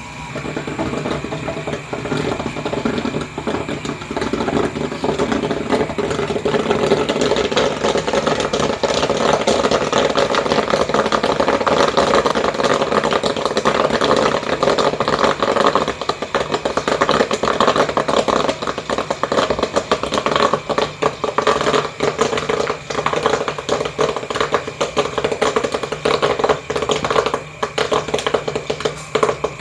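Caramel popcorn popping in a gas-heated pot with a motorised stirrer: a dense, irregular crackle of kernels bursting over a steady hum. The popping thins out near the end as the batch nears done; when it stops, all the corn has popped.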